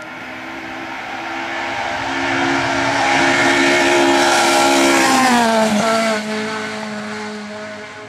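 Classic Lada saloon rally car's four-cylinder engine at high revs, growing louder as the car approaches at speed. About five and a half seconds in, the engine note drops sharply as the car passes, then holds at a lower, steadier pitch.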